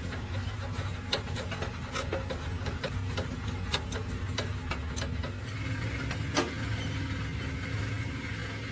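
A motor runs with a steady low hum while sharp clicks and knocks of metal work come at irregular intervals, one louder knock about two-thirds through.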